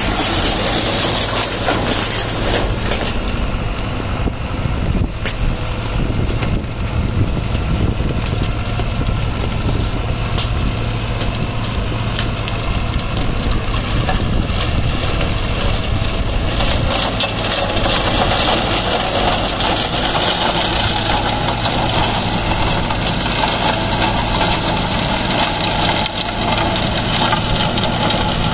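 Deutz-Fahr Agrolux 80's four-cylinder diesel engine running steadily under PTO load, driving a Maschio Terminator shredder as its rotor chops dry crop stalks and branches. Scattered sharp cracks of breaking stalks come through in the first half.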